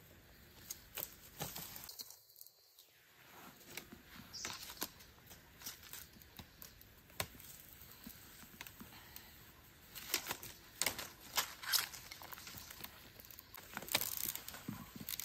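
Light rustling and scattered clicks of hands working sticks, string and dry leaf litter on a forest floor while setting a trap, with a louder cluster of clicks about ten to twelve seconds in and again near the end.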